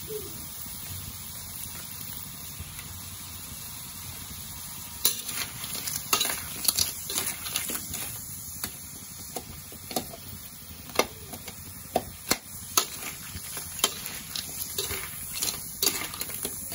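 Crab pieces frying in butter and garlic in a metal wok, with a steady sizzle. From about five seconds in, a metal spatula stirs and turns them, knocking and scraping against the wok and the shells at irregular intervals.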